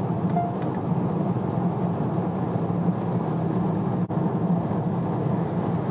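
Steady road and engine noise inside a car cabin cruising on a motorway at about 120 km/h, with a short faint beep about half a second in.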